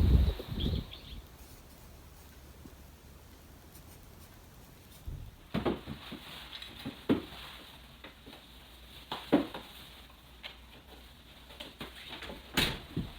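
Scattered light knocks and taps at irregular intervals, starting after a few seconds of quiet room tone, over a faint low hum.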